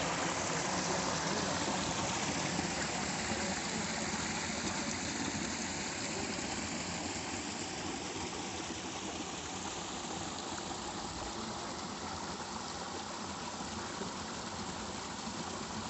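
Small stream splashing and rushing over rocks in a little cascade: a steady rush of water that grows slightly quieter as it goes on.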